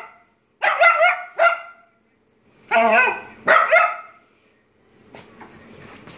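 A small dog barking in play: three quick high-pitched yaps, then two longer barks about a second later.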